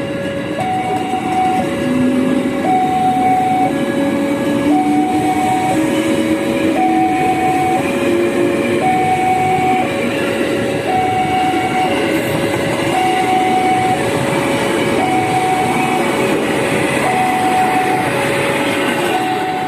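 Two-tone railway level crossing alarm, alternating between a lower and a higher tone about once a second, over the steady rumble of a train.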